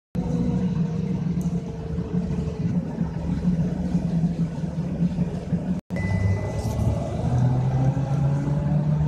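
Inside a moving trolleybus: a steady low hum with the electric traction motor's whine over it, the whine easing slightly downward at first and then, after the sound cuts out briefly about six seconds in, rising steadily in pitch as the trolleybus picks up speed.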